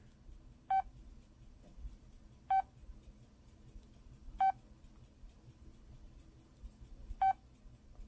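LG Scoop (AX260) phone's keypad beep sounding four times, a short single-pitched beep every couple of seconds, the last after a longer pause. Each beep is a press of the navigation key, scrolling to the next wallpaper in the phone's menu.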